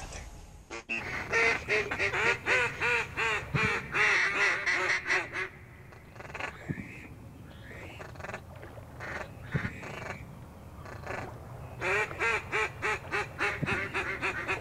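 Duck call blown from the blind, mallard-style quacking: a long fast run of quacks, about five a second, starting about a second in, then softer scattered notes, then another fast run near the end.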